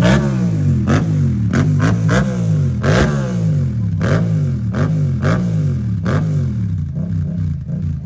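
Honda CB650R's inline-four engine being revved repeatedly, its pitch rising and falling about twice a second.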